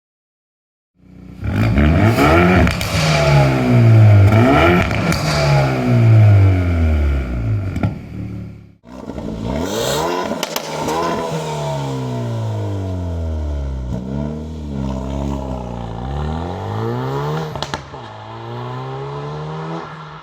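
Hyundai i30 N Performance's turbocharged 2.0-litre four-cylinder, breathing through a full stainless-steel exhaust line, revved in repeated bursts, its note climbing and falling, with a few sharp cracks as the revs drop. It starts about a second in and breaks off briefly near the middle.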